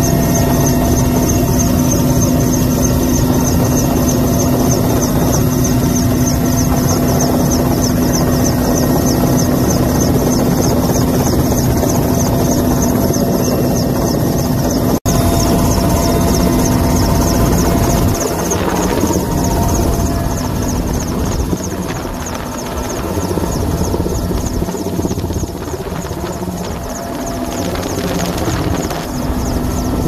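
Helicopter rotor and engine running steadily: a loud constant drone with a fast flutter. It drops out for an instant about halfway through, and is somewhat softer and more uneven from a little past halfway.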